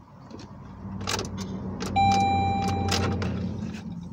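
One long, steady electronic beep inside a car whose engine will not start, beginning about two seconds in and lasting about a second. Under it are a few sharp clicks and a low hum.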